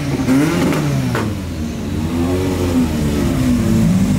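Kimera EVO37's four-cylinder engine running at low speed and being blipped, its pitch rising and falling twice as the car rolls slowly past.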